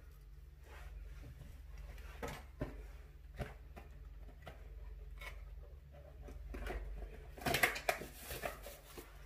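Handling noise: scattered light knocks and rustles as things are moved about, with a louder cluster of rustling about seven and a half seconds in, over a steady low hum.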